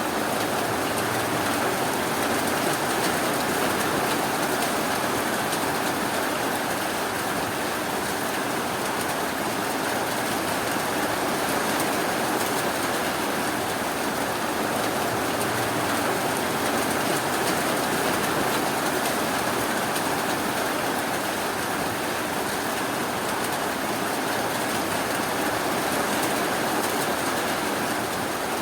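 Steady rainfall, an even hiss with no distinct drops or thunder.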